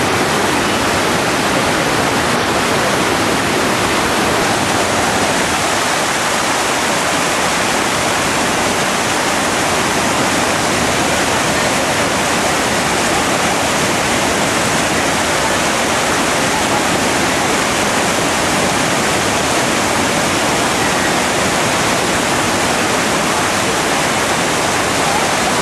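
Loud, steady rush of white water pouring over rocks at a waterfall and its rapids.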